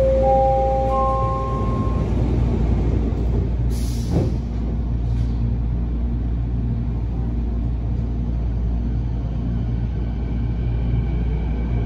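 Canada Line SkyTrain car heard from inside. A rising three-note chime sounds at the start over the train's steady low rumble, and a short hiss comes about four seconds in. Near the end a faint whine rises in pitch as the train starts moving through the tunnel.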